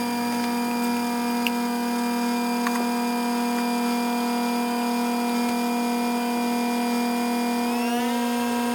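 Background music: a long held synth chord that slides in pitch into a new chord near the end.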